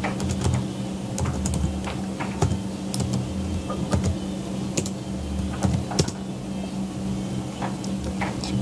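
Typing on a computer keyboard: irregular keystroke clicks, spaced unevenly, over a steady low hum.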